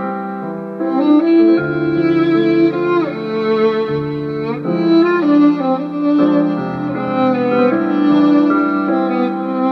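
A violin and a contrabass playing a pop-style instrumental piece. The violin carries the melody in held notes with a couple of slides in pitch, over a line of lower bass notes.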